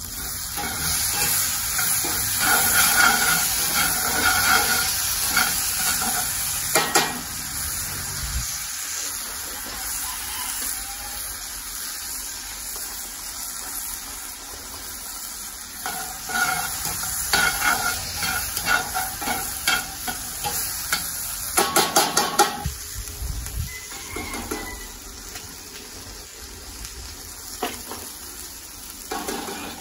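Chopped vegetables sizzling in an oiled cast iron skillet over charcoal, stirred with metal tongs. The sizzle hisses steadily, with sharp clicks and scrapes of the tongs against the pan here and there and a quick run of them about three-quarters of the way through.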